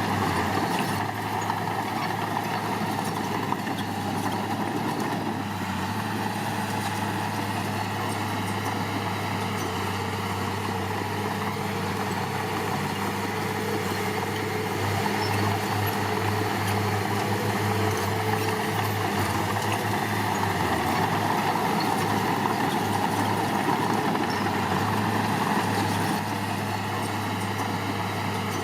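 Heavy-equipment diesel engine running steadily under working load. It gets a little louder in the second half and eases off near the end.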